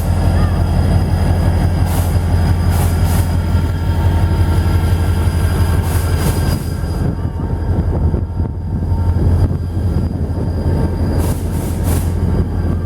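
Diesel freight train in a rail yard: a steady low engine rumble, with scattered sharp clicks and faint thin high-pitched wheel squeal.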